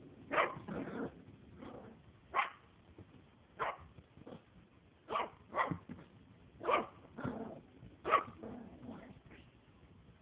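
A four-month-old Maltese puppy barking: about a dozen short puppy barks at irregular intervals, a few of them louder than the rest.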